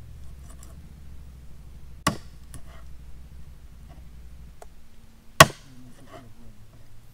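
Two sharp impacts about three seconds apart, the second louder, with a few faint clicks between them.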